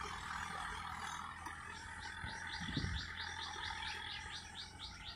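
Mahindra Arjun 555 DI diesel tractor engine running steadily under load while pulling a cultivator through wet soil. About two seconds in, a bird starts a fast, even series of short high chirps, about five a second.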